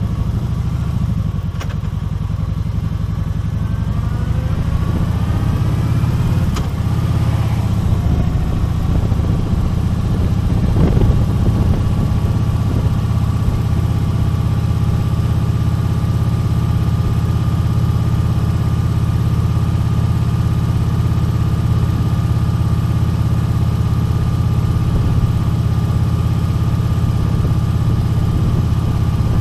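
Kawasaki Vulcan 1700 Voyager's V-twin engine running on the move, rising in pitch over the first several seconds as the bike picks up speed, then holding a steady, even cruise.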